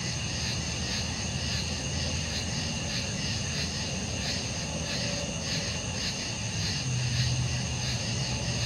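Night insects chirping in a steady chorus, one pulsing about twice a second over high steady trills. A low hum underneath grows louder about seven seconds in.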